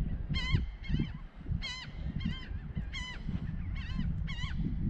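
Geese honking over and over, a steady run of short nasal calls at about two a second, with a low rumble underneath.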